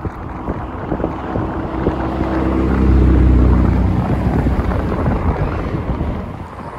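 Wind buffeting the microphone while a motor vehicle passes: its engine grows louder to a peak about three seconds in, then fades away.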